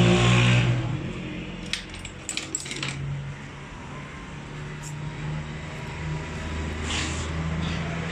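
Small metal parts of a diesel injection pump clinking in the hands, with a quick cluster of light metallic clicks about two seconds in and another near the end. Under it runs a steady engine-like hum, loudest in the first second.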